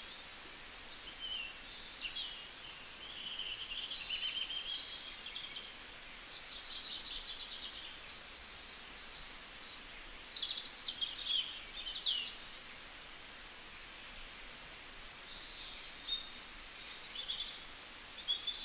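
Many birds chirping and twittering in short, high calls and brief gliding whistles over a steady hiss. The calls come in clusters, busiest about ten to twelve seconds in and again near the end.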